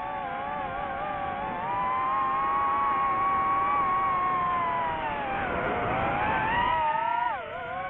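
DJI FPV drone's motors and propellers whining, the pitch rising and falling with the throttle. The pitch sinks deeply and climbs back about five to six seconds in, then drops sharply again near the end.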